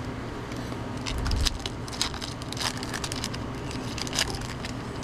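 Baseball trading cards being flipped through by hand: a quick run of small snaps, clicks and rustles as cards slide off the stack.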